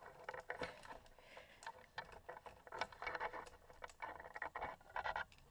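Faint, irregular clicks, taps and rustling as hands work at a plastic wiring connector and harness on a Jeep Wrangler TJ's MAP sensor.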